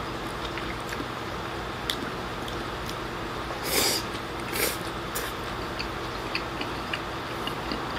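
Eating sounds: a mouthful of stir-fried pork and pea shoots taken from chopsticks, with two short slurps about four seconds in as the food is sucked into the mouth, and small soft clicks of chewing and chopsticks around them.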